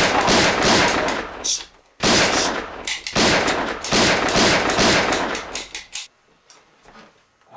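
Rapid gunfire from a handgun: a fast string of shots that breaks off briefly about two seconds in, then resumes and cuts off suddenly about six seconds in.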